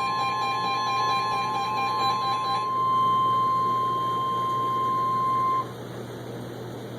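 NOAA Weather Radio's steady 1050 Hz warning alarm tone, announcing a flash flood warning, which cuts off sharply about five and a half seconds in. A second, pulsing beep sounds alongside it until about three seconds in.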